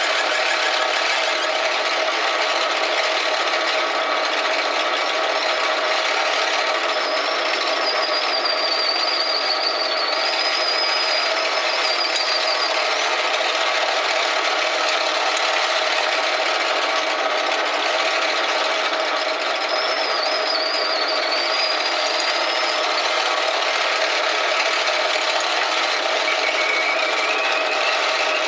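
Small benchtop metal lathe running steadily while a 1/4-inch twist drill in the tailstock bores through a spinning piece of brass. A high, wavering squeal of the bit cutting rises and fades twice, about a quarter of the way in and again past the middle.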